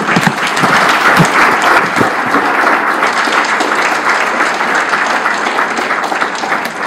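Audience applauding: many people clapping steadily after a speech.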